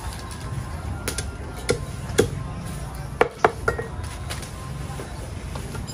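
Steel meat cleaver chopping through raw chicken into a thick wooden chopping block: about six sharp whacks. A few come spaced apart, then three in quick succession a little past the middle.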